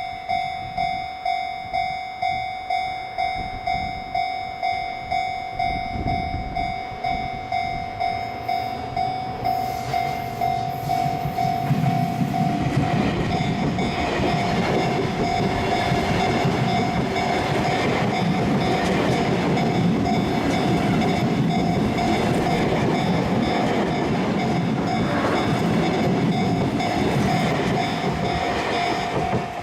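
A Japanese level-crossing warning bell dings about twice a second. From about nine seconds in, a Sotetsu 8000 series electric train approaches, then passes over the crossing with rolling wheel rumble and rail-joint clatter while the bell keeps ringing underneath. The train noise dies away near the end, leaving the bell alone again.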